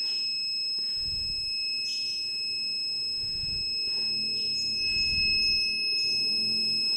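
Car parking sensor buzzer sounding one continuous high-pitched tone without a break, a buzzer that is slow to switch off.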